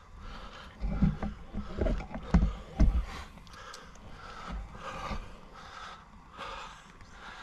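Handling noise as a large carp is lifted up for a photo: a few dull thumps in the first three seconds, with rustling and short, heavy breaths throughout.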